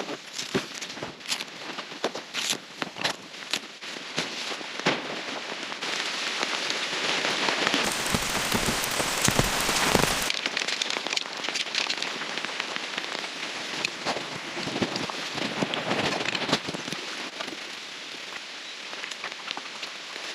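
Rain falling, with individual drops landing close by as scattered sharp taps. About eight seconds in, a denser, louder hiss of rain comes in for about two seconds and cuts off suddenly.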